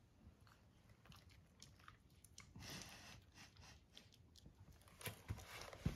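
Faint wet clicking and smacking of a puppy's mouth, soft at first with a couple of sharper clicks near the end.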